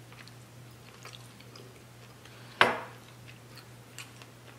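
Quiet eating sounds: faint chewing and the soft small clicks of fingers pulling meat off a rotisserie chicken in a glass dish. One sudden, loud, sharp sound comes about two and a half seconds in and fades quickly.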